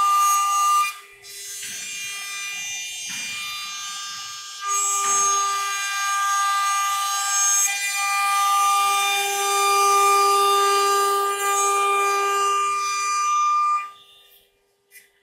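A CNC router's high-speed spindle cuts a wood board with a steady high-pitched whine over a hiss of cutting. The sound drops away briefly about a second in, comes back louder around five seconds in, and stops about a second before the end.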